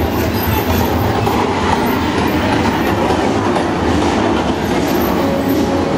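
Engines of a column of big touring motorcycles and V-twin-style cruisers running at walking pace, a steady low pulsing rumble. A held tone sounds briefly near the end.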